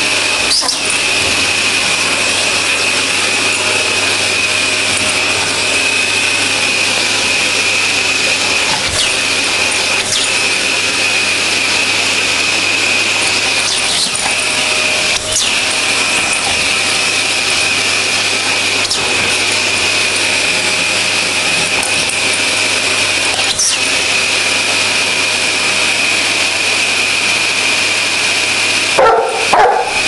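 Vacuum cleaner running steadily with a high whine, with occasional sharp knocks as a Dogue de Bordeaux bites and pushes at its metal tube. The dog barks loudly a few times near the end.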